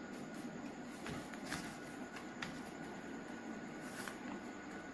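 A sheet of paper being folded by hand: soft rustling and a few short, crisp crackles as the folds are pressed, over a steady background hiss.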